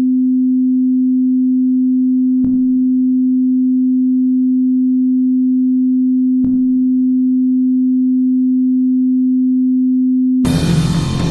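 A steady, loud pure electronic tone held at one low-middle pitch, with two faint clicks about two and a half and six and a half seconds in. Near the end the tone cuts off abruptly and loud music begins.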